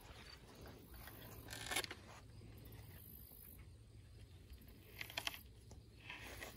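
Mostly quiet, with a few faint scrapes and rustles, near two seconds in and again about five seconds in, as the duct-taped target panels are handled and cut at with a knife.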